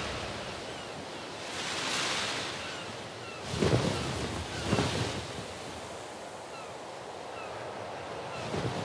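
Rushing ambient noise that swells and fades several times in slow gusts, with faint short chirps scattered over it.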